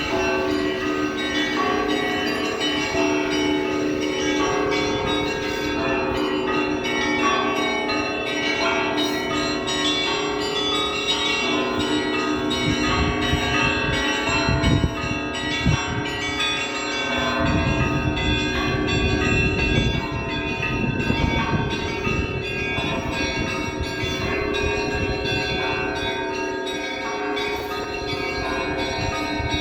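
Russian Orthodox church bells rung together in a continuous peal: many bells of different pitches struck in quick succession, their tones overlapping and ringing on. A low rumble sits under the bells in the middle stretch.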